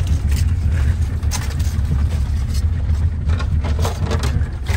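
Boat motor running steadily with a deep low rumble, with a few short knocks and clatter of gear on deck.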